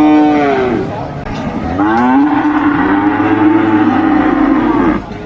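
Cattle mooing. A long moo tails off with a falling pitch in the first second, and a second long, steady moo starts about two seconds in and lasts about three seconds.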